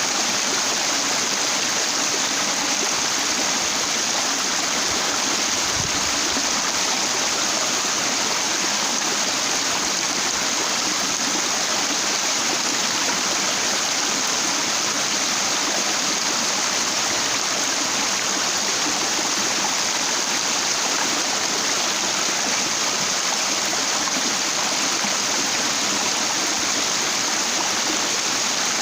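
Stream water running over broad, flat rocks: a steady, even rush with no break.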